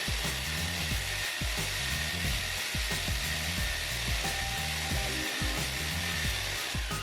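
Electric drill with a long bit boring through a thick wall, a steady grinding hiss that stops near the end. Background music with a bass line plays underneath.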